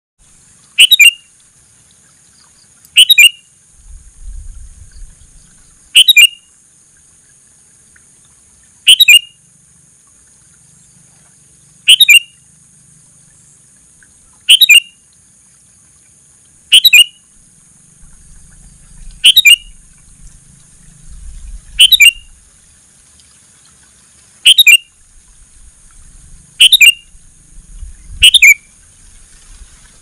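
Sooty-headed bulbul (kutilang) giving short, loud calls, one about every two to three seconds, twelve in all.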